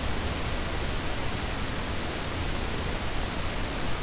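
Steady hiss with a low hum underneath: the background noise of the recording microphone between the narration.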